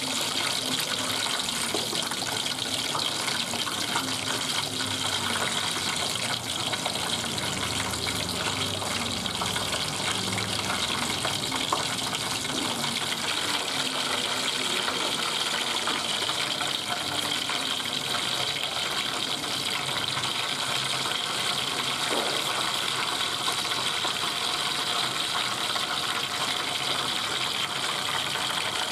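Steady sizzle of a whole fish deep-frying in a bowl of hot, bubbling oil.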